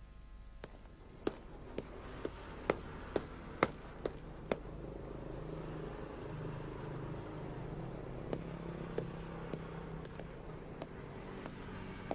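Footsteps on a hard surface, about two steps a second for a few seconds, then a few scattered steps later, over a low steady background hum.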